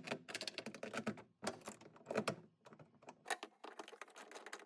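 Rapid, irregular clicking and rattling of a hand tool backing out bolts from the plastic tailgate trim of a car, in several quick runs with short pauses.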